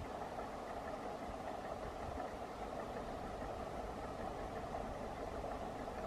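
Hector Rail timber train heard from a distance as it approaches along the line: a steady, even rumble and hum.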